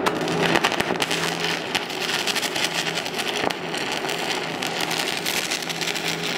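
Aluminum stick electrode arc welding on DC electrode-positive, with the base metal and rod preheated: the arc gives a steady, dense crackle and sizzle, with a faint low hum underneath.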